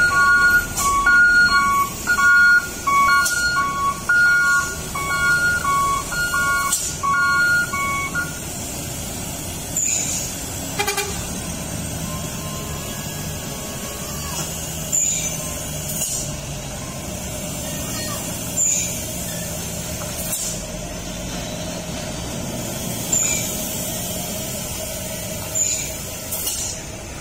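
Heavy truck's reversing alarm beeping in an alternating two-tone pattern, about one high-low pair a second, for the first eight seconds while the truck backs up. Then the diesel truck engine runs steadily, with short sharp hisses of air every few seconds, typical of air brakes.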